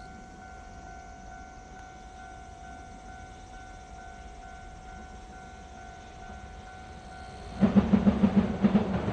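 JR Freight EF210-300 electric locomotive and its container freight train running onto a girder bridge: a faint distant rumble, then about seven and a half seconds in a sudden loud rumble with a rapid rhythmic clatter of wheels.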